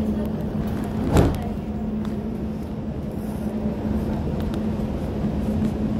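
Steady electrical hum and low rumble inside a Dubai Metro Alstom train carriage, with a single sharp thump about a second in.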